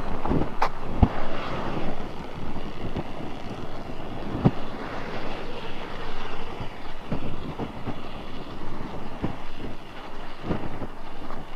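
Handheld dry-chemical fire extinguishers hissing as they are sprayed onto a burning pickup truck, over the steady noise of the fire, with scattered sharp pops from the blaze.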